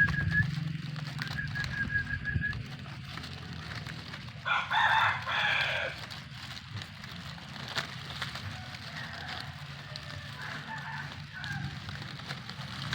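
A rooster crows once, loud and about a second and a half long, about four and a half seconds in. A fainter crow follows later.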